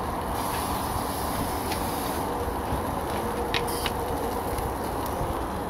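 Aerosol canola-oil cooking spray hissing onto chicken drumsticks on a gas grill for about two seconds near the start. Underneath is the steady rushing noise of the lit gas grill.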